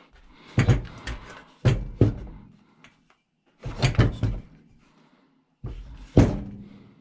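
Heavy knocks and thumps on a broken chainsaw as its stubborn handle is worked at to force it off, coming in four bunches a second or two apart.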